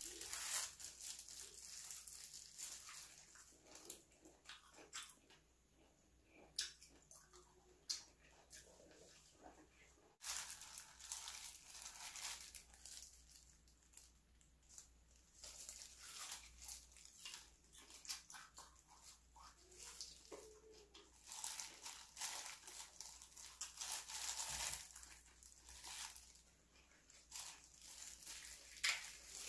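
Faint close-up eating sounds: biting and chewing braised octopus, with many short clicks and crackles from the mouth and the crinkling of disposable plastic gloves as the food is handled.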